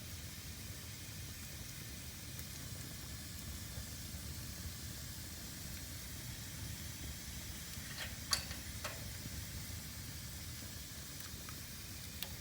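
Fire burning in a fireplace: a steady low rumble and soft hiss, broken by a few sharp crackles and pops, the loudest about eight seconds in.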